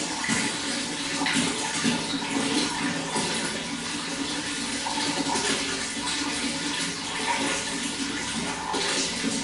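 Running water splashing and gurgling steadily, like a stream or small fall pouring over rocks, with small irregular splashes throughout.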